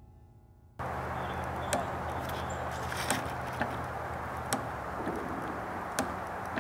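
The last of the music fades and cuts off about a second in. It gives way to a playground spring rider being rocked, its coil spring and seat knocking and clicking about once a second, over outdoor noise with a steady low hum.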